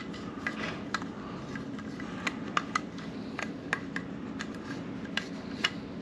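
Irregular light clicks and taps of hard plastic as an LED license plate bulb and its socket are worked into a plastic light housing by hand, over a steady low hum.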